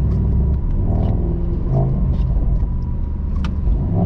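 Mercedes-AMG SL55's 4.0-litre V8 biturbo engine running low and steady as the car drives slowly, exhaust set loud in Sport Plus. Light ticks are scattered through it, with a sharper one near the end.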